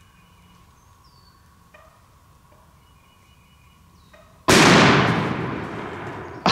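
A single shotgun shot fired at a turkey, sudden and loud, about four and a half seconds in, dying away over about two seconds.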